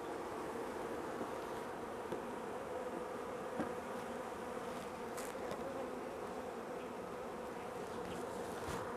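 Mass of honeybees from a freshly installed package buzzing around the open hive: a steady, dense hum, with a few faint taps.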